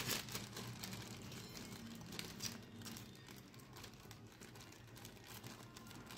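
Faint crinkling of a thin clear plastic bag, handled in scattered soft rustles as a coiled USB cable is packed back into it.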